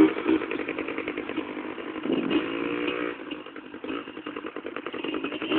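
Yamaha Blaster quad's two-stroke single-cylinder engine running and revving as the quad is ridden across the field, with the revs rising and easing off and the engine quieter for a moment about four seconds in.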